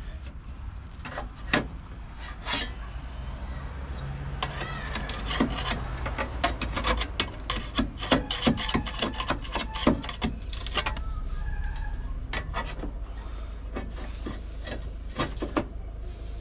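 A hand-made sheet-steel repair panel being handled and offered up to the car's inner wing: irregular scraping and knocks of metal on metal, busiest in the middle, over a steady low hum.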